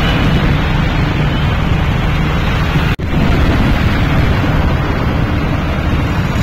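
Loud, steady rumble of wind buffeting the microphone on a moving motorbike, with vehicle noise beneath it. It cuts out for an instant about three seconds in.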